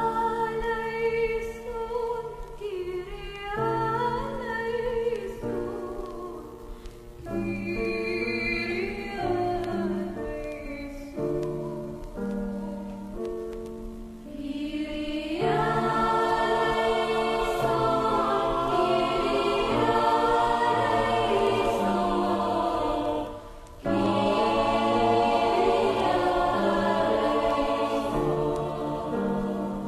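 A woman singing a slow hymn solo over a small ensemble of violins, oud, qanun and accordion. About halfway through, a mixed choir comes in and the sound grows much fuller, with a short break about three quarters of the way through.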